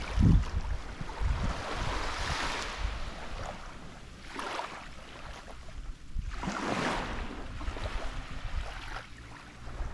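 Small waves lapping and washing up on a sandy shore, swelling and fading about three times. Wind buffets the microphone with a low rumble in the first second or so.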